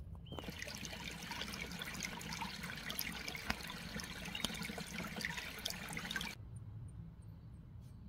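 Shallow stream trickling over pebbles, a steady crackling hiss that cuts off abruptly about six seconds in. A quieter background follows, with faint high chirps repeating about three times a second.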